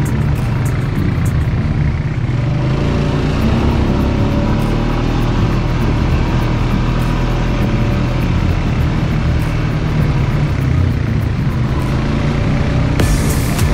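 ATV (quad bike) engine running steadily as the quad rides along a dirt trail.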